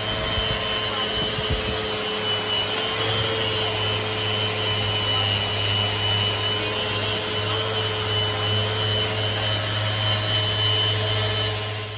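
Random orbital sander running steadily on fibreglass, its dust-extraction vacuum drawing through the hose: a steady hum with a high whine over the rush of the motor.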